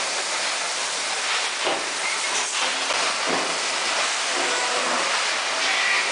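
Steady rushing machine noise of a 50 kg bag filling and closing line running, with a few faint knocks.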